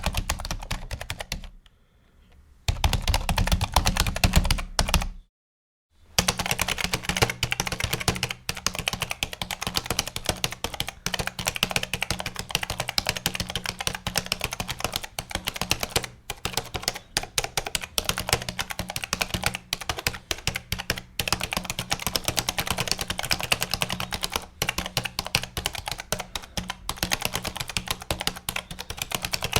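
Fast, continuous typing on a gaming computer keyboard, a dense run of key clicks. The typing breaks briefly about two seconds in, comes back with heavier low thumps for a couple of seconds, cuts to dead silence just after five seconds, then runs on as rapid keystrokes.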